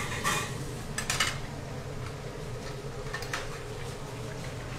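Kitchen range hood fan running with a steady hum. A metal spatula clinks against a pan a few times: once near the start, a quick cluster about a second in, and once more past three seconds.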